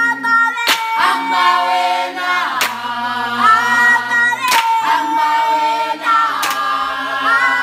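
A mixed group of children and young people singing a Xhosa song a cappella in harmony, with sustained voices and a sharp hand clap about every two seconds.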